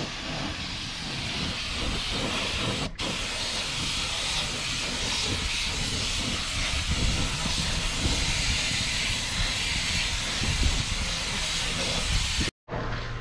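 Suction-feed compressed-air spray gun hissing steadily as it sprays paint. The hiss breaks off for an instant about three seconds in and cuts off abruptly near the end.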